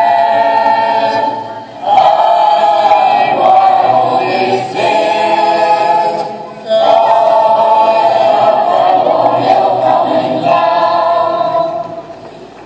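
A choir singing a slow song in long held phrases, with short breaks between phrases.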